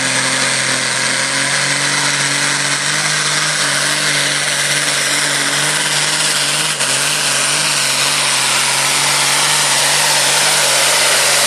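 Ford pulling tractor's diesel engine running flat out under full load as it drags the weight sled down the track, a loud, steady engine note that holds its pitch.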